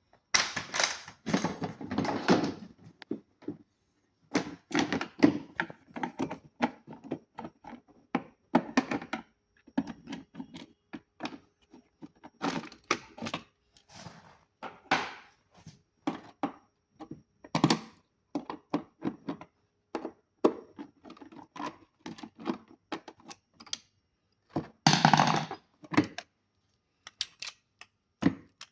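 Irregular clicks, knocks and short scrapes of hands handling a small plastic device while its battery is replaced, with denser handling at the start and again about 25 seconds in.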